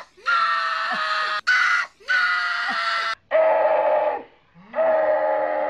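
A man screaming at the top of his voice: a run of long, held yells, about five in a row with short breaks for breath between them.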